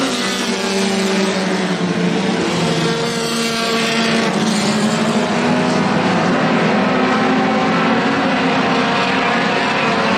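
A pack of four-cylinder Super 4 dirt-track race cars running at speed around the oval, several engine notes overlapping in a steady, continuous sound.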